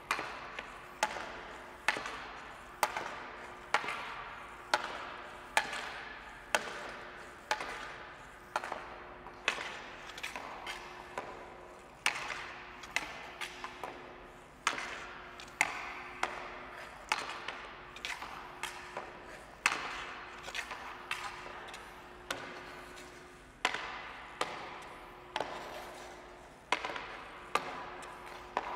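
Hockey stick blade knocking a puck side to side in one-handed stickhandling: a sharp clack about once a second with softer taps in between, each one ringing out in an echoing room.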